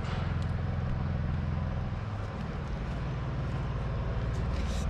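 An engine running steadily, giving a low, even rumble.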